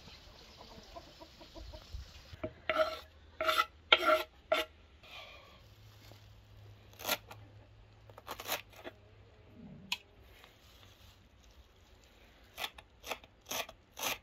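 Kitchen knife slicing through a bunch of fresh herbs on a wooden board: a series of crisp, crunchy cuts, a quick run of four a few seconds in, scattered strokes after, and about two a second near the end.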